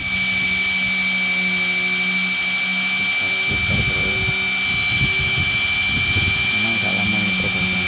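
Corded electric drill with a paddle mixer running steadily with a high whine, stirring two-component Mapelastic cementitious waterproofing slurry (liquid plus powder) in a bucket.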